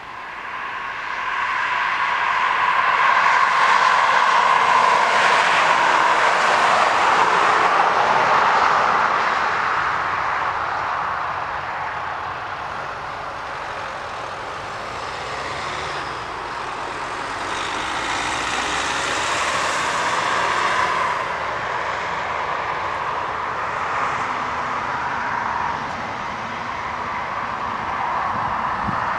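Jet engine noise of a Ryanair Boeing 737-800 with its CFM56 engines, landing and rolling out along the runway, with a steady whine through it. The noise swells loud a couple of seconds after touchdown, eases off through the middle, and rises again as the jet rolls closer.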